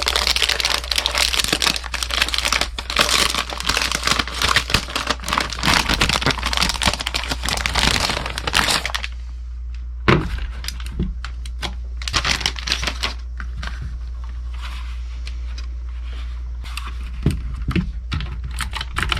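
Packaging crinkling and tearing as a new mechanical keyboard is unwrapped, a dense crackle for about nine seconds, then scattered separate clicks and taps.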